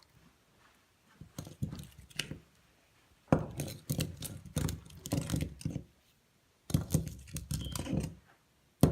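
A spoon stirring thick glue-and-detergent slime in a bowl, clicking and scraping against the sides in irregular bunches of quick taps.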